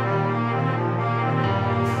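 Slow, sad-sounding music of held, sustained notes; the low bass note changes about one and a half seconds in.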